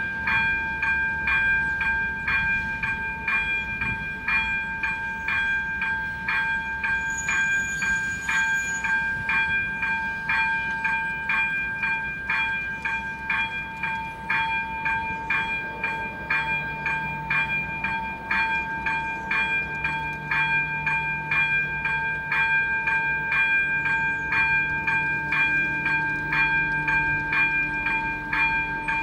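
ZV-02 level-crossing bell striking steadily, about twice a second, as the crossing warns of a train. About halfway through, the low drone of an approaching diesel train joins it.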